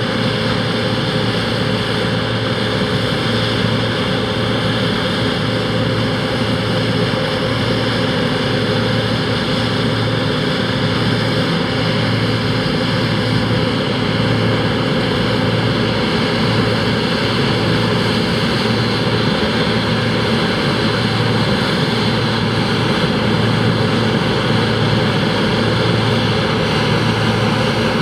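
John Deere 2264 combine harvester running steadily while harvesting barley: an even machine drone with a few held tones.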